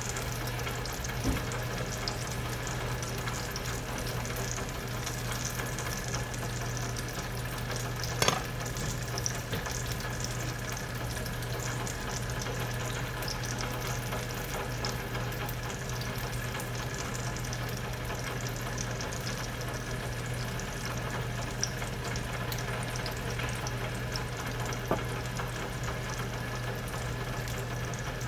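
Steady sizzle of food cooking on the stove, over a low steady hum, with a few light knocks about a second in, near the middle and near the end.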